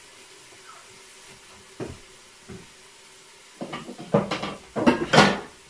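Kitchen utensils clattering on a counter as a knife and wooden chopping board are picked up and handled: a single knock about two seconds in, then a quick run of knocks and clatter near the end, the loudest just before it stops, over a faint steady hum.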